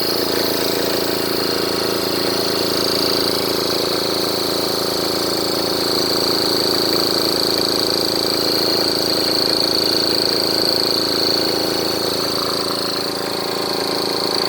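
Twin-cylinder, water-cooled 4500 psi PCP high-pressure air compressor running steadily: an even mechanical hum with a high, steady whine over it.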